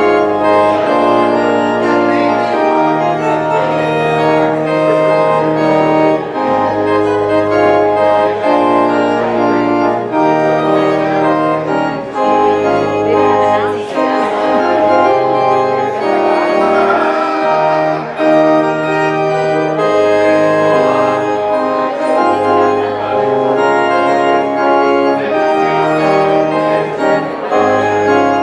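Church organ playing slow, sustained chords over a bass line that moves in long held notes.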